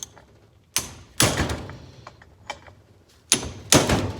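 Four sharp knocks, each trailing off briefly, in two pairs about a second in and near the end: a large 1.5-inch wrench being worked against a tight plug on a Laycock Compact A overdrive unit.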